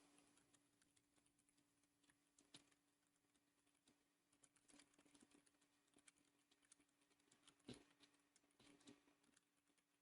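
Faint, rapid, irregular keystrokes on a Keychron K3 v2 low-profile keyboard with linear red optical switches during a typing test, with a few slightly louder key strikes. A faint steady hum runs underneath.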